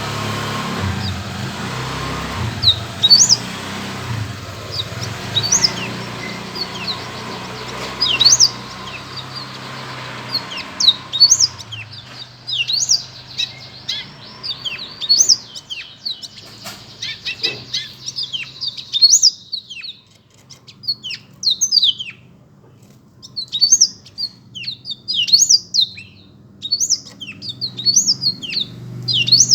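Black-throated canary (blackthroat) singing: a long run of quick, high, sharp chirps and twittering phrases that grow denser and more continuous partway through. A low steady hum sits underneath for the first part and again near the end.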